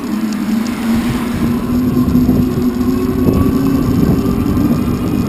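E-bike riding along a wet road: continuous wind buffeting on the microphone and tyre noise, with a steady hum that rises slightly in pitch.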